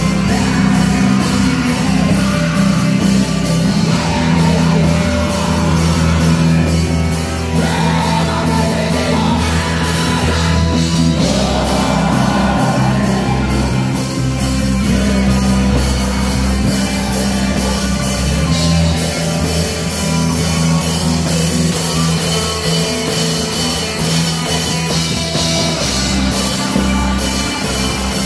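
Heavy metal band playing live: electric guitar, electric bass and drum kit, with a vocalist singing into the microphone.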